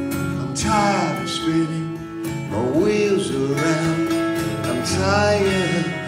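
Acoustic guitars playing an instrumental break in a country-style song: strummed chords with a lead line whose notes glide in pitch, about a second, three seconds and five seconds in.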